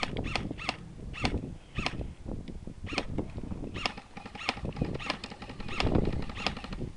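Footsteps at a walking pace, short crunching strokes about every half second to second, with rustling of clothing and kit.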